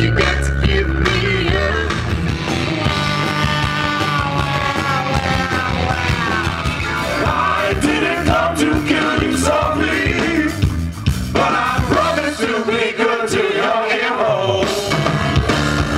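A band playing rock music with a singer's voice over bass and drums.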